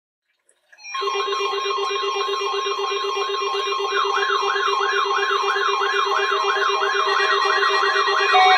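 A bank of weather alert radios going off together about a second in, alerting for the required weekly test: a steady tone with warbling, up-and-down alarm tones and a pulsing beep layered over it. More alarm tones join partway through and the sound grows fuller.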